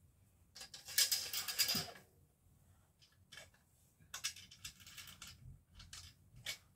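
Curtain being hung on a ceiling track: hooks and runners scraping and clicking into the track with the cloth rustling. A long scratchy burst comes about a second in, then shorter clicks and rasps.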